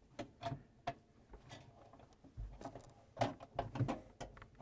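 Scattered light clicks and knocks of pliers working a metal bracket open at a refrigerator's evaporator coil.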